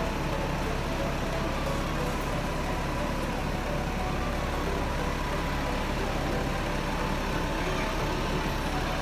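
Steady street traffic noise with the diesel engines of double-decker buses running, a constant low rumble.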